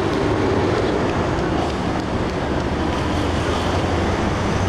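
Steady city street traffic noise.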